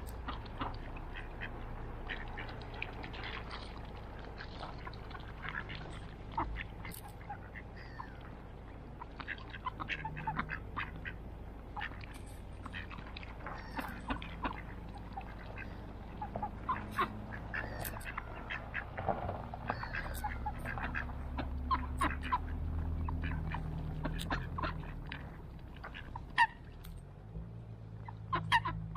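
Flock of mallard ducks quacking on the water, with many short calls scattered throughout.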